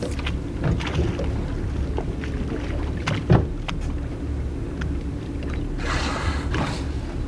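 A boat at sea: a steady low engine hum with water splashing and wind noise over it. A sharp knock comes a little after three seconds in, and a rush of splashing hiss about six seconds in.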